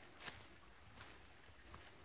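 Two faint footsteps on the forest ground, about a quarter second and a second in.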